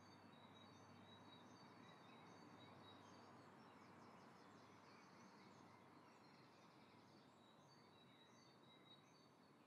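Near silence: faint background hiss with faint, distant bird chirps.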